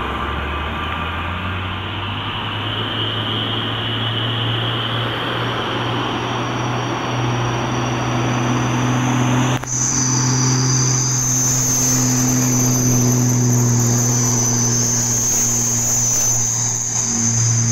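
Truck engines running on a night road, with insects chirping in a steady high drone. About halfway through the sound breaks off for an instant and resumes, after which the engines settle to a steady hum and the insect drone is clearer.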